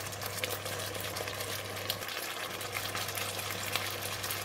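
Red curry sauce with beef and eggplant simmering in a wok, a gentle bubbling and sizzling with small scattered pops, over a steady low hum.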